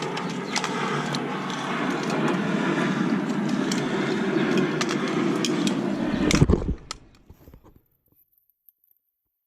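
Handling noise while working on car parts: a steady rushing noise with scattered light clicks and rattles, then a louder knock about six and a half seconds in, after which the sound drops out to dead silence.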